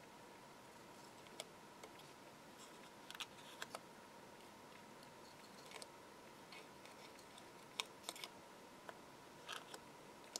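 Small pointed craft scissors snipping into a thin paper decoupage layer: a dozen or so faint, short snips scattered irregularly, some in quick pairs.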